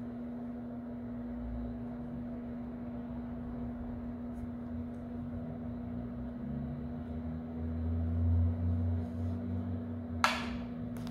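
Steady low hum, with a brief loud swish about ten seconds in as the hand pulls the yarn through the stitches past the microphone.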